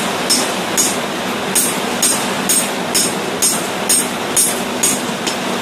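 Hand hammer striking a tapered cutter that is being driven through red-hot medium-carbon steel to slit the eye of a hammer head: sharp metallic blows about two a second, with one longer pause near the start. Heavy rain makes a steady hiss underneath.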